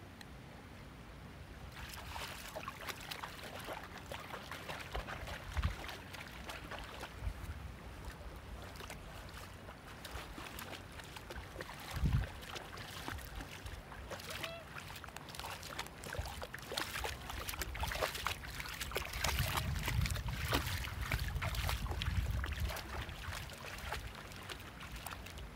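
A dog wading and splashing through shallow salt water, with quick small splashes and sloshing throughout and a couple of low thumps; midway it laps at the water with its nose down, and it is loudest near the end as it trots through the shallows.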